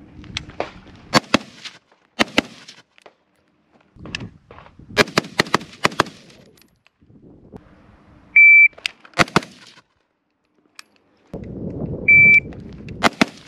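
AR-15 rifle with a Lantac E-CT1 trigger firing: fast strings of shots early on, then twice a shot timer's high start beep, each followed about a second later by a quick double shot.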